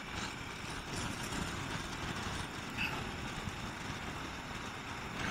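Motorcycle on the move, a steady mix of engine and wind noise.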